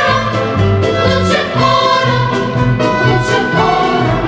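Background music: a song with singing over a regular bass beat.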